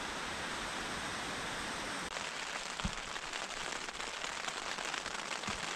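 Heavy thunderstorm rain pouring down steadily. About two seconds in it changes to rain pattering on tent fabric close by, a dense run of fine drop hits over the steady hiss.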